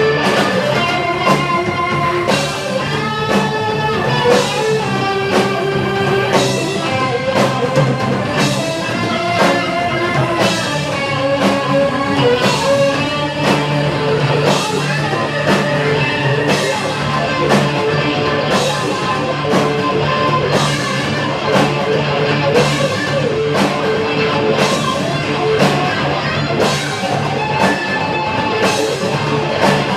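Rock band playing live: electric guitar, bass and drum kit together, with a steady drum beat.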